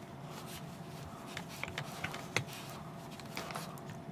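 Faint, scattered small clicks and taps over quiet room tone.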